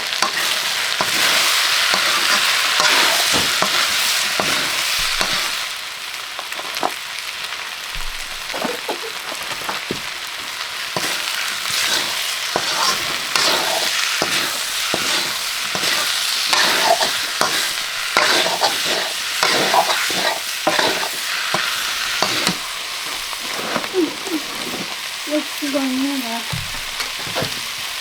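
Curry ingredients sizzling as they fry in hot oil in a pan, stirred with a spoon that scrapes and clicks against the pan throughout. The sizzle is loudest for the first five seconds or so.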